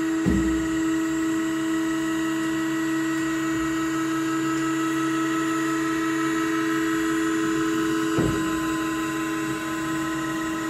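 Hydraulic lift of a VMI AR160 overturnable spiral mixer running steadily with a constant whine as it raises and tilts the mixer head and bowl. A low knock comes just after the start and another about eight seconds in.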